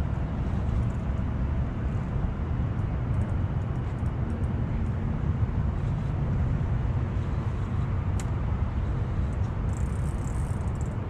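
Boat's outboard motor idling: a steady low rumble. A short run of faint high ticks comes near the end.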